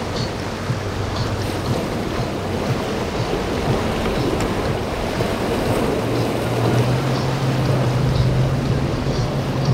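Motorboat running through rough water: a steady low engine drone over the wash of waves and spray, with wind on the microphone. The engine note grows stronger about six seconds in.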